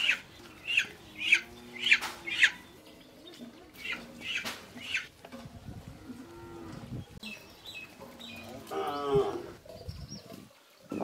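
A cow mooing, with a bird repeating sharp downward-sliding calls about twice a second through the first half.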